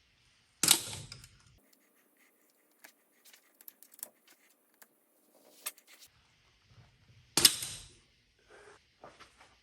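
Metal hand tools clinking and clattering as a ratchet with sockets, extensions and an angle-finder attachment is handled. There is a sharp clank just under a second in and a louder one about three-quarters of the way through, with light ticks and clicks between them.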